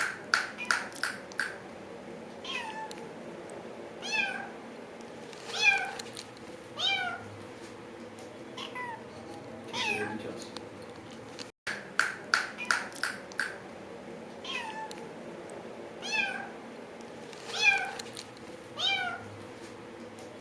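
Domestic cat meowing repeatedly, short meows coming every second or two. Each set of meows is led by a quick run of sharp clicks, and the clicks and meows repeat after a brief break about halfway through.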